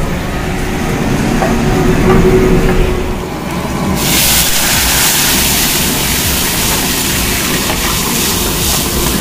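Gas burner running under a wok of hot oil. About four seconds in, boiled, marinated chicken pieces are tipped in from a steel plate and the oil breaks into a loud, steady sizzle that holds to the end.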